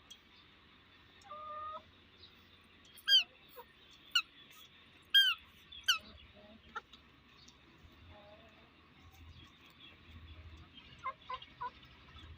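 Chickens calling: a brief steady call about a second in, then four short, sharp squawks between about three and six seconds in, and three quieter short calls near the end.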